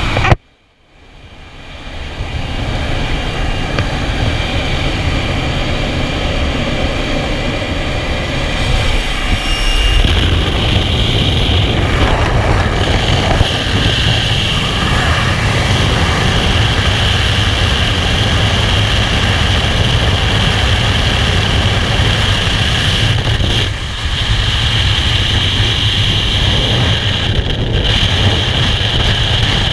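Jump plane's engine and rushing air at the open door, then, from the exit about ten seconds in, steady loud freefall wind buffeting the camera's microphone.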